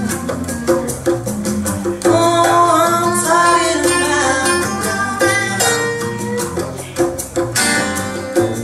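Recorded music with guitar and a woman singing, played back over a pair of Verity floor-standing hi-fi loudspeakers.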